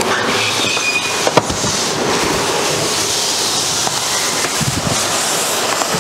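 Cardboard shipping carton being slid up off a plastic-wrapped soft-serve ice cream machine: a steady scraping rustle of cardboard against plastic film, with a single click about a second and a half in.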